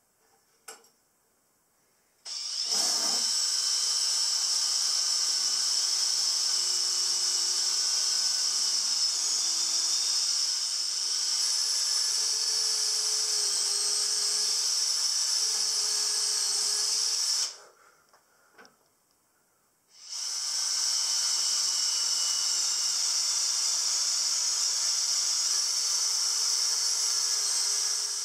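Makita 18V cordless drill boring a bolt hole down through pine timber: the drill runs steadily for about fifteen seconds, stops for a couple of seconds, then runs again for about eight seconds.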